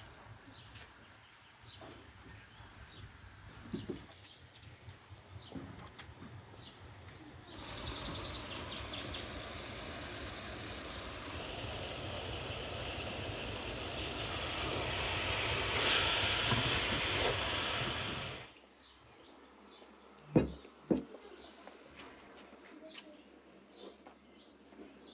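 Quiet outdoor ambience with birds chirping and faint small ticks. Partway through, a steady hiss swells for about ten seconds, then cuts off abruptly. Two sharp knocks follow, about half a second apart.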